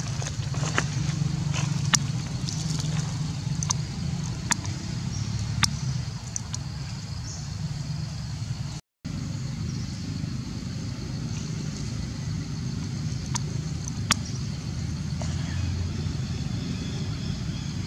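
Steady low motor rumble with scattered sharp clicks and ticks over it; the sound drops out for an instant about halfway through.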